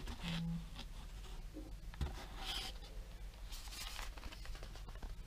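Cardboard retail box with a clear plastic window being handled and turned over in the hands: soft rubbing and scraping of the packaging in short strokes, with a light knock at the start and another about two seconds in.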